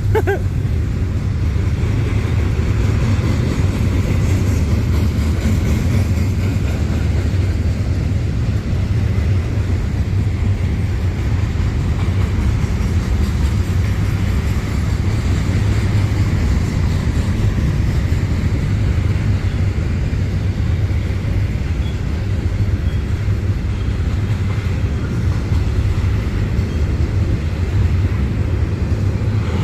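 Freight train rolling past: a steady, loud rumble of the cars on the rails, unchanging throughout.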